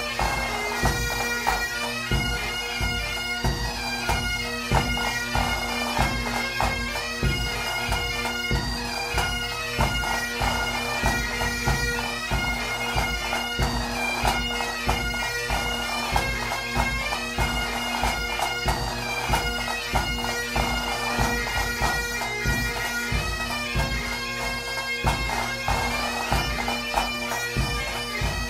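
Pipe band music: bagpipes play a melody over their steady drone, with a regular drum beat underneath.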